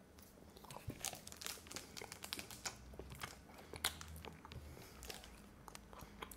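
Quiet chewing of a piece of iChoc Almond Orange chocolate: many small, irregular crunching clicks from the almond bits, with some light crinkling of the plastic wrapper.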